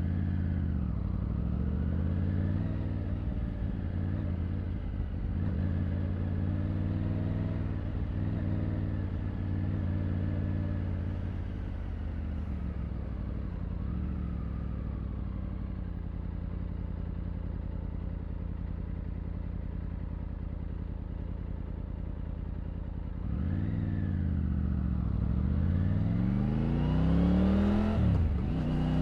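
Triumph Tiger 900's three-cylinder engine and exhaust pulling through the gears, the revs climbing and dropping back at each upshift. Through the middle the revs hold steady, then near the end it accelerates hard again through several quick gear changes.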